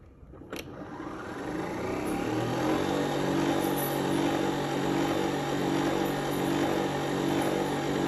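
A button on a Nespresso Vertuo Next coffee machine clicks, and about a second later the machine starts up. It builds quickly into a steady mechanical hum and keeps running as it begins its preheating cycle.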